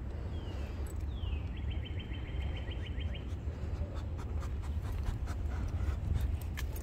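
Afghan hounds sniffing and brushing through dry sticks, with light clicks and rustles in the second half, over a steady low rumble. A small bird sings a descending note and a rapid trill about a second in.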